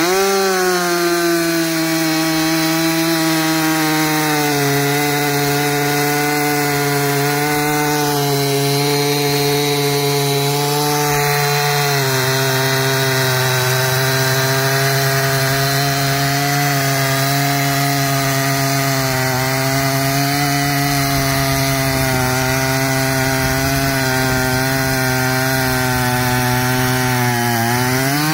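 Stihl 362 two-stroke chainsaw held at full throttle through one long cut in a poplar log, on a freshly grinder-sharpened chain. The engine note sags a little under load twice during the cut and rises again as the bar comes free near the end.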